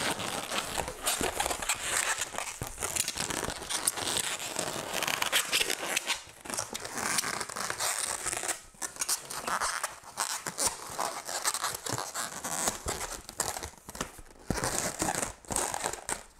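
Latex twisting balloons being handled and twisted, the rubber rubbing against itself and against hands in a continuous scratchy, squeaky texture, with a few brief pauses.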